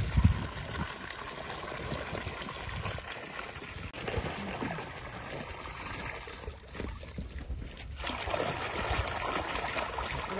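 Water and small fish pouring out of plastic bags into a pond, splashing and trickling, with a low thump right at the start.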